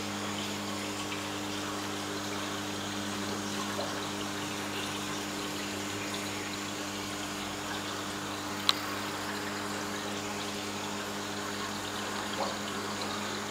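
Aquarium pump or filter running, with a steady low hum and water trickling. A sharp click comes about two-thirds of the way in, and a softer one near the end.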